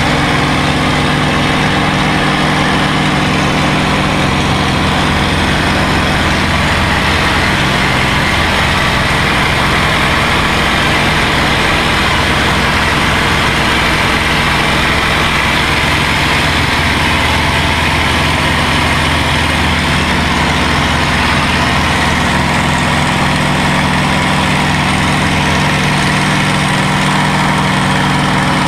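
P-51D Mustang's Packard Merlin V12 engine running steadily in flight, loud and unbroken.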